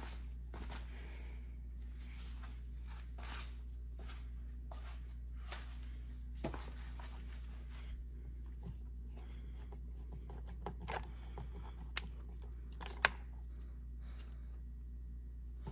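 Hand screwdriver driving self-tapping screws into a plastic dashboard panel: scattered faint clicks and short scrapes as the screws bite, with one sharper click about thirteen seconds in, over a steady low hum.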